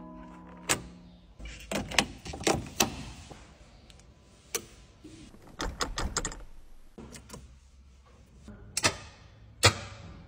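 Sharp plastic and metal clicks and taps of car parts being handled and fitted, about a dozen scattered irregularly: first fuses and relays in an engine-bay fuse box, then a gear shift knob.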